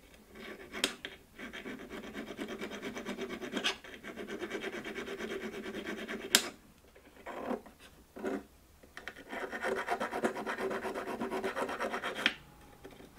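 A small hand file rasps back and forth on a tiny metal horseshoe-shaped valve cotter held in pliers against a wooden block, in quick, even strokes. A few sharp clicks come through, and the filing stops for a couple of seconds about two-thirds of the way through before going on.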